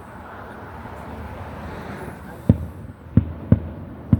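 Fireworks bursting: four sharp booms in the second half, over a steady background hum of outdoor noise.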